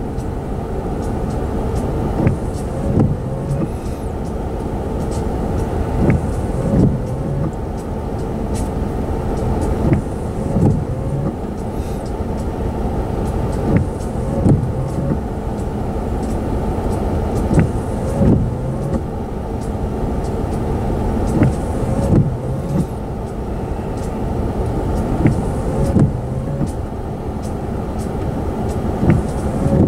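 A slow-moving train rolling past close by, its wheels clicking over a rail joint in pairs, about one pair every four seconds, over a steady hum.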